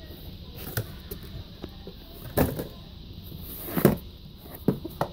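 Small cardboard boxes handled and set down on a wooden desk: a few separate knocks and rubbing sounds, the loudest just under four seconds in.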